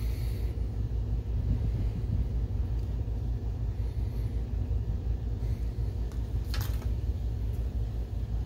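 Steady low background rumble, with one short click about two-thirds of the way through.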